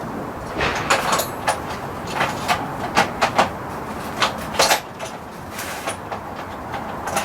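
Irregular sharp clicks and knocks of hand tools and metal parts being handled, over a steady background noise.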